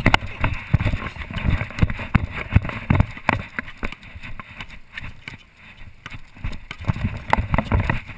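A basketball bouncing on a hard outdoor court, with sneaker footsteps and scuffs in irregular thuds as players move, over low wind rumble on a body-worn camera's microphone.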